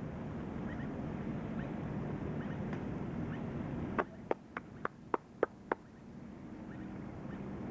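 Steady background noise with faint short chirps. Just past the middle comes a quick run of seven sharp clicks, about four a second.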